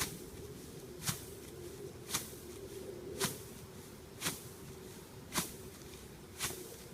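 Steps crunching down on cereal rye stalks, seven in an even rhythm of about one a second, over a steady low hum.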